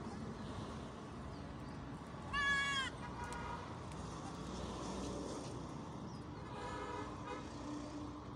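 Young goat kid bleating: one loud, high call about two and a half seconds in, falling at its end, then a fainter short call, and a lower-pitched bleat near the end.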